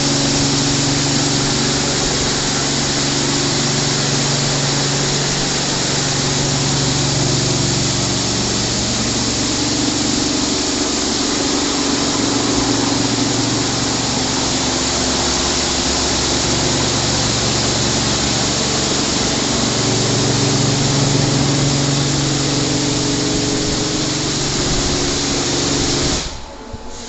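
WashTec SoftCare 2 Pro rollover car wash spraying a car: a steady, loud hiss of water jets from the nozzle bar, with a low machine hum underneath that swells and fades every few seconds. The hiss drops abruptly to a much quieter level near the end.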